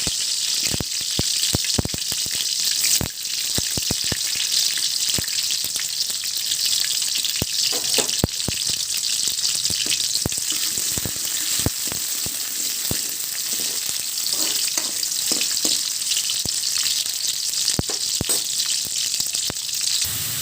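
Sliced onions sizzling steadily in hot oil in a kadai, with many sharp clicks of a spatula against the pan as they are stirred.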